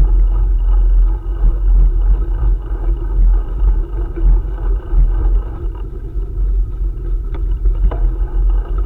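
Wind buffeting a moving camera's microphone during a bicycle ride: a loud, fluctuating low rumble, with a couple of sharp clicks near the end.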